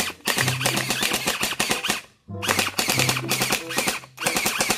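Electric toy gel blaster firing water-gel beads on full auto: a rapid rattle of shots over a low motor hum, in three bursts, with a short break about two seconds in and a brief one just after four seconds.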